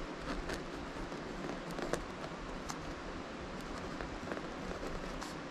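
Pen writing on spiral notebook paper: short, irregular scratchy strokes over a steady low hiss.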